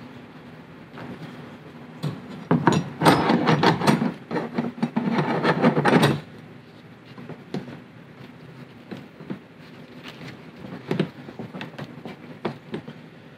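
Fuel pump module being pressed and worked by hand into its seal in the fuel tank opening: plastic parts rubbing and clicking. There is a dense run of scraping clicks for about four seconds, then scattered light clicks.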